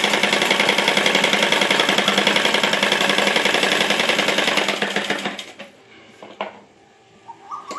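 Sewing machine stitching lace onto saree fabric: a rapid, steady clatter that stops about five seconds in, followed by a few light clicks.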